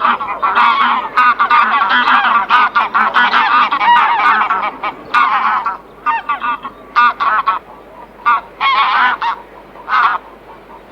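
Several birds calling loudly. Many harsh, pitched calls overlap for the first five seconds or so, then single calls follow at intervals.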